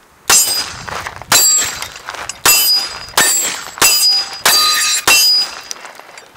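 Semi-automatic handgun with a red-dot sight firing seven shots at an uneven pace, about one every 0.6 to 1 second, each a sharp crack with a short ringing tail.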